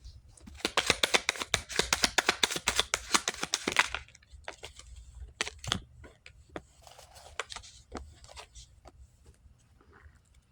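A deck of reading cards being shuffled: a fast run of card flicks for about three seconds, then a few scattered card snaps and rustles.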